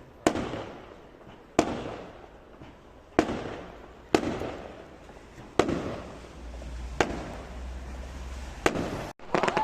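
Fireworks going off: about seven sharp bangs, one every second or so, each followed by a fading echo.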